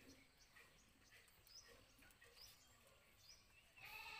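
Near silence: faint rural ambience with a few faint bird chirps, then near the end a goat kid's bleat begins.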